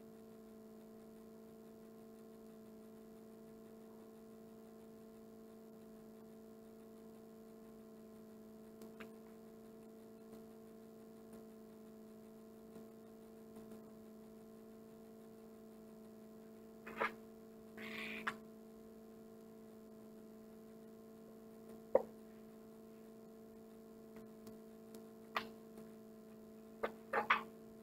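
Steady low electrical hum, with a few faint clicks scattered through and a brief scratchy rustle about two-thirds of the way in.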